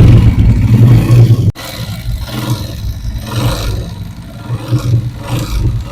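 125 cc motorcycle engine running: revved loud for about the first second and a half, then idling more quietly with an uneven, pulsing note. The noise is from play at the pin under the magnet (magneto) cover, the pin knocking inside its housing. The mechanic calls it a dangerous sound.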